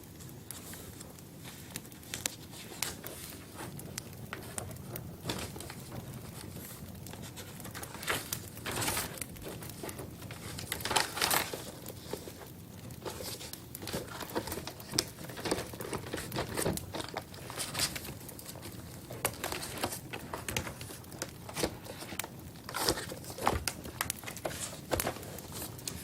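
Irregular crinkling and crackling, many small sharp clicks and rustles over a soft hiss, busiest about a third of the way in.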